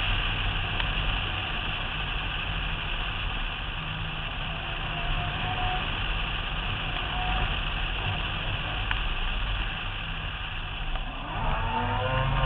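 Mazda RX-7's rotary engine running at speed, heard from the car's roof over a steady rush of wind on the microphone. The revs climb near the end.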